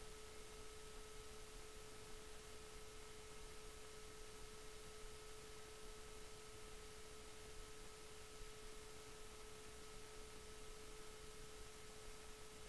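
Near silence: a faint, steady pure tone with a fainter higher tone above it, over low hiss.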